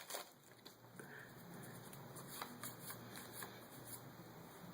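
Faint rustle and small flicks of Yu-Gi-Oh trading cards being slid through by hand, one card at a time, from a freshly opened booster pack.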